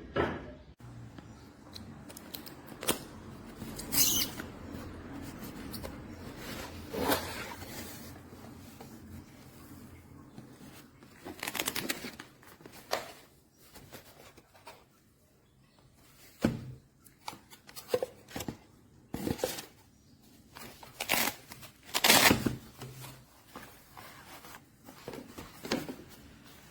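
Handling of a precision screwdriver kit: scattered clicks, taps and rustles of screwdriver bits, extension and plastic parts being handled, the loudest cluster about three quarters of the way through.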